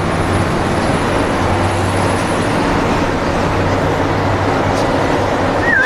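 Steady engine and road noise inside a bus cab at motorway speed. Right at the end a horn starts to sound with a wavering tone.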